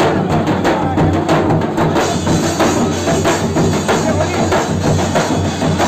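Procession music with drums and jingling percussion keeping a quick, steady beat.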